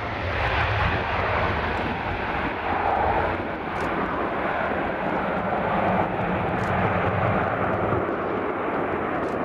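Boeing 737's twin turbofan engines at takeoff thrust as the jet lifts off and climbs away: a steady jet rush whose deep rumble thins out about three and a half seconds in.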